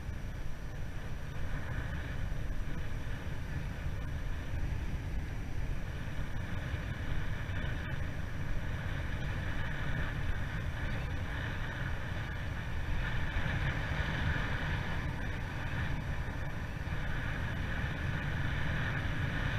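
Steady wind rush on the microphone of a camera carried on a moving bicycle, with a low, even road rumble underneath.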